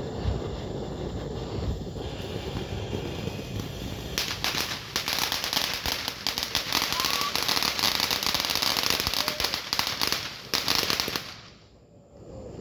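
Fireworks going off: after a few seconds of quieter fizzing, a rapid, dense string of crackling pops runs for about seven seconds and cuts off abruptly near the end.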